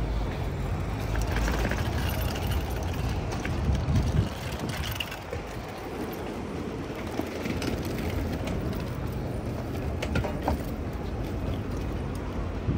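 Street ambience: a steady low rumble of passing car traffic, swelling and easing, with wind on the microphone and a few light clicks.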